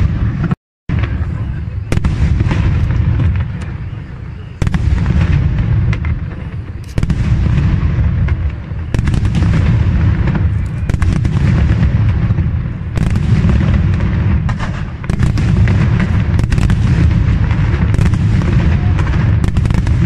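Fireworks display: a continuous barrage of launches, bangs and crackle, growing louder in steps. The sound cuts out briefly under a second in.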